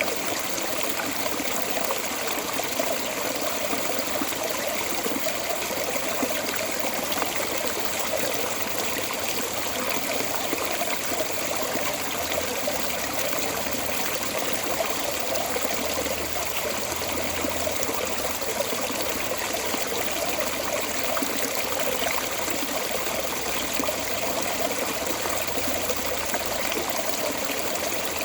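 Water pouring out of a storm drain outlet, a steady, unbroken splashing and trickling flow.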